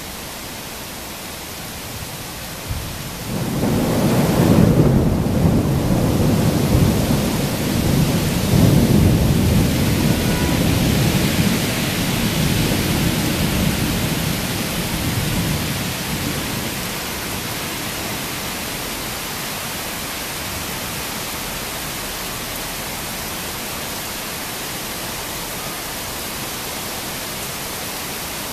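A thunderstorm: a long roll of thunder rumbles in about three seconds in, swells twice and dies away over roughly a dozen seconds, over the steady hiss of heavy rain.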